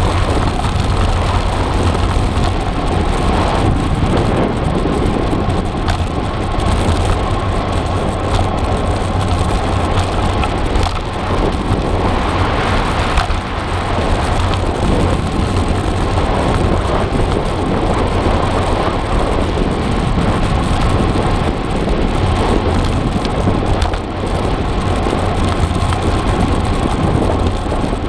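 Steady wind buffeting on the microphone while riding a cross bike along a road, a loud low rumble with road noise mixed in.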